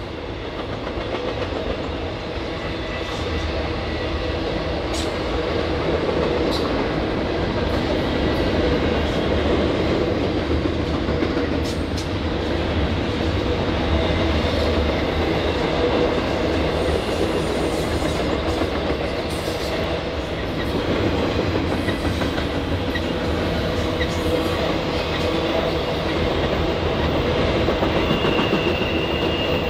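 Norfolk Southern intermodal freight train rolling past in a steady rumble, with scattered clicks of wheels over the rail. Near the end a high, steady wheel squeal sets in.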